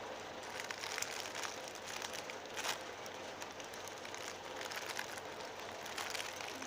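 Crinkling and rustling of a homemade squishy's packaging as it is handled, with scattered sharper crackles.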